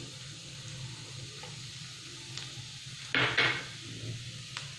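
Semolina sizzling softly in hot ghee as it is poured into the pan and stirred with a spatula, with a few light clicks and one louder scrape of the spatula about three seconds in.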